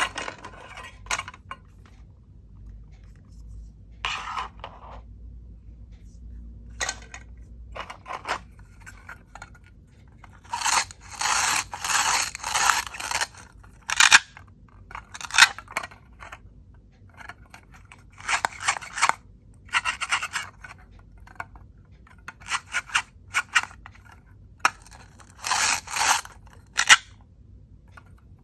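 Plastic toy fruits and vegetables being cut apart with a toy knife: a series of rasping, tearing scrapes. Most are short, the longest lasts about three seconds, with quiet gaps between.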